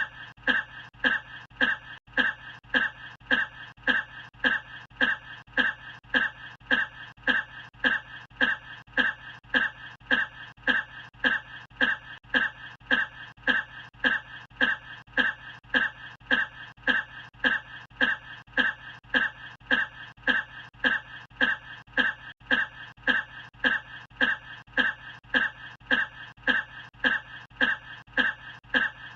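A person's short cough, looped so it repeats identically about twice a second without a break.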